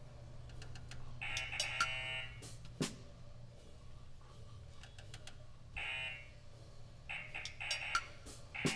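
The buzzer of an Operation board game sounding in short bursts as the tweezers touch the metal edge. One longer buzz of about a second comes near the start, and several brief ones follow in the second half, with a few sharp clicks. A steady low hum runs under it.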